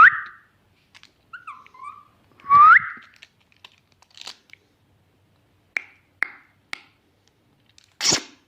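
Two loud rising whistles, with short chirpy whistled notes between them, followed by a few sharp clicks and a louder crack near the end.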